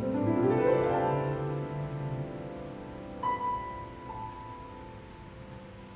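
Solo upright piano playing: a quick rising run of notes in the first second rings on, then a single bright higher note is struck about three seconds in, and the sound dies away to softer notes.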